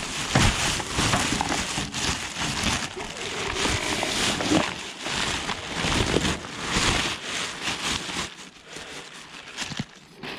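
A plastic rubbish sack rustling and crackling as it is tipped out, with a jumble of collected litter (plastic cups, bottles, cardboard) sliding and tumbling into a bin. The noise dies down in the last couple of seconds.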